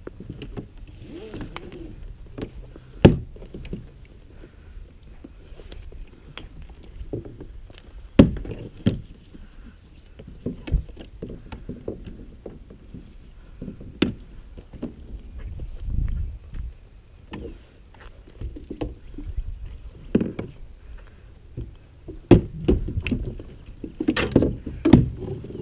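Irregular knocks, clicks and clunks of fishing gear and a rod being handled against a plastic kayak hull, busier near the end.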